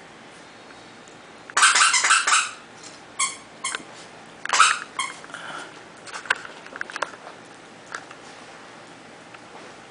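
Yorkshire terriers play-fighting, giving short bursts of high squeaky yips. The loudest come about a second and a half in and again about four and a half seconds in, then a few fainter squeaks.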